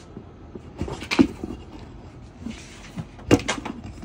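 A loose rubber Onewheel tire being handled and set down on a workbench: two sharp knocks about two seconds apart, with smaller taps and a brief rubbing scrape between them.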